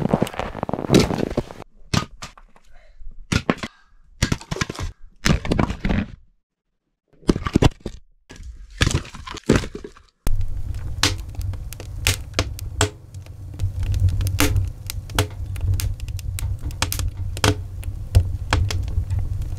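Axe splitting firewood rounds: sharp cracks and thunks in short separate bursts. About halfway through it gives way to a steady low rumble with many small knocks and clicks of split wood being handled and stacked.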